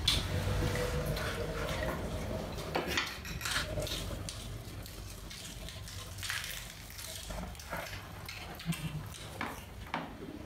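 Chopsticks clinking and tapping irregularly against rice bowls and plates as people eat.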